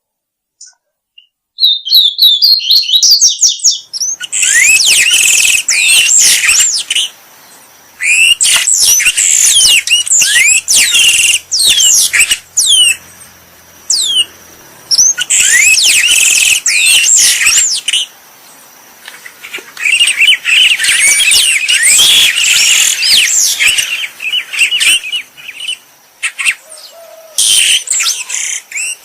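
Songbird song used as training audio for caged songbirds: dense, rapid runs of high chattering and sweeping whistled notes, in bursts of a few seconds with short pauses between them. It starts after about a second and a half of near silence.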